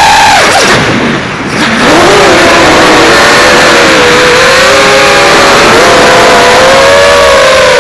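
5-inch FPV quadcopter's brushless motors and propellers whining. The pitch drops steeply as the throttle is cut about half a second in, then climbs back within a second and holds, wavering up and down with the throttle.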